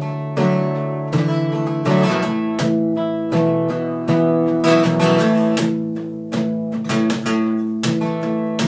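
Acoustic guitar strummed in a steady rhythm, each chord ringing on between the strokes.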